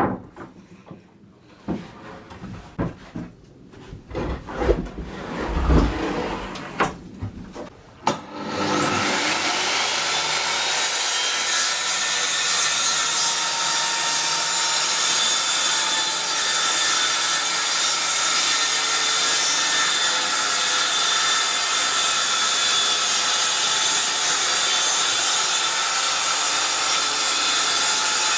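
A few seconds of wooden knocks and clatter, then an electric power tool on wood spins up with a rising whine about eight seconds in and runs at a steady, even pitch.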